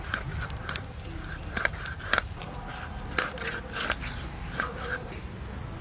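A large knife cutting through a section of black carp, crunching in irregular sharp cracks as the blade breaks through the fish's thick, coin-sized scales and skin.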